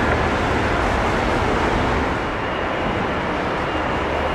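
Jet airliner engines making a steady, loud rumbling noise that eases slightly about two seconds in.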